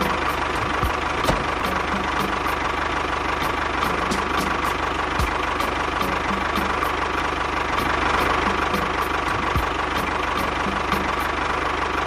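Tractor engine running steadily, with a regular light ticking about twice a second.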